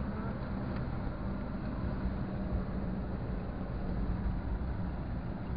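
Car driving at a steady speed, heard from inside the cabin: a steady engine hum under road and tyre noise.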